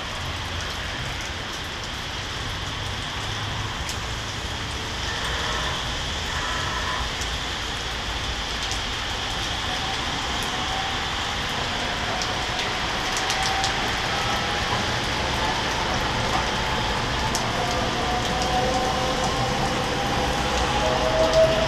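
Steady rain falling on the balcony and wet street, with a few close drops ticking now and then. From about halfway a faint whine slowly rises in pitch as a light-rail train pulls through the street below.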